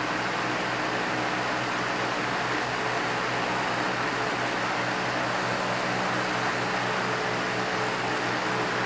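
WeatherWorks DB-888 box fan running on high speed with its grille off: a steady rush of air over a low motor hum, with a faint even pulsing.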